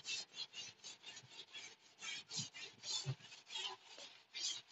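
Chalk rubbing on a blackboard in quick back-and-forth strokes, several a second, as a broad area is shaded in with the side of the chalk. It is faint and scratchy, with no knocks.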